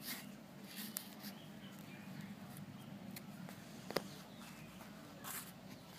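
Faint handling noise from Shimano Saint pedal parts worked by hand: scattered light clicks and rustles, with one sharper click about four seconds in.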